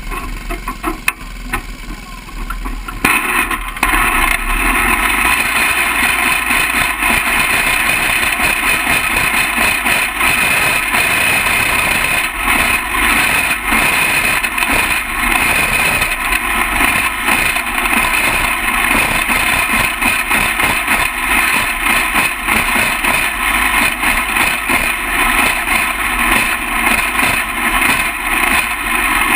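Jr. champ kart's small single-cylinder engine heard from onboard, pulling away at low speed and then running hard from about three seconds in as the kart laps a dirt oval, a steady loud drone to the end.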